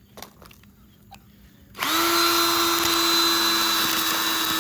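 Rechargeable drill starting up about two seconds in and running at a steady speed with a high whine, drilling into an iPhone SE at its Touch ID home button. Before it come a few faint clicks.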